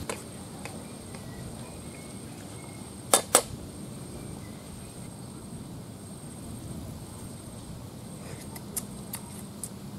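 Wooden spatula knocking twice against a metal frying pan about three seconds in, with a few lighter taps near the end, over steady outdoor background noise and a faint steady high whine.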